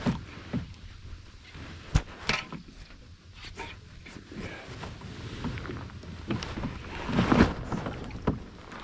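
Handling noise from a baitcasting rod and reel in a kayak: scattered sharp clicks and knocks over a steady low rumble, with a louder patch of rustling and knocking about seven seconds in.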